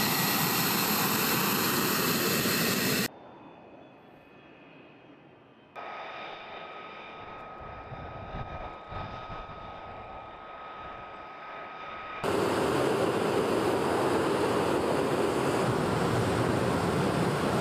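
Jet aircraft engines running on a flight line, heard across cuts between shots. First, an F-16 fighter's engine runs with a loud steady rush and several high whining tones, cutting off suddenly about three seconds in. After a quieter stretch with a thin steady whine, a loud steady jet rush starts again about twelve seconds in.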